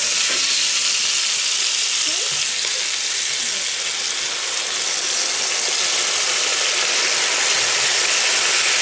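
Diced bacon and onions frying in a hot cast-iron skillet: a steady, loud sizzle of spitting fat.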